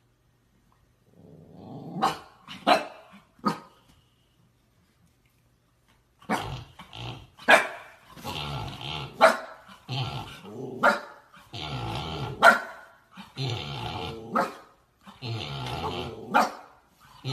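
Husky puppy play-growling and barking. A few short barks come a second or two in, then a pause, then repeated bouts of growling, each with a sharp bark, about every second and a half.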